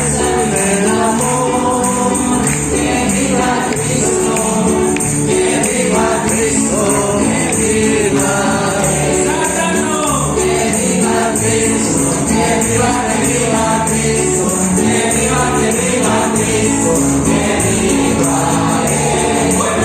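Christian praise music: a group of voices singing over instruments, with a tambourine shaking along.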